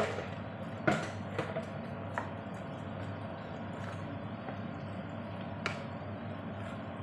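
A wooden spatula stirring chopped greens through a simmering sauce in a nonstick frying pan, with a few light knocks of the spatula against the pan: the sharpest right at the start and about a second in, smaller ones after. A steady hiss runs underneath.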